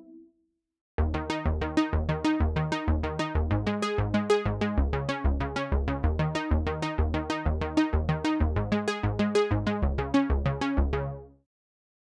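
TAL-U-NO-LX, a software emulation of the Roland Juno-60 synthesizer, playing its "ARP - Laser run 2" arpeggiator preset: a fast, even run of short synth notes over a bass line. It starts about a second in and fades out near the end.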